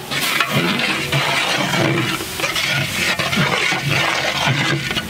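Onions and masala powder frying in oil in a large metal cooking pot: a steady sizzle, with irregular scrapes of a long metal ladle stirring against the pot.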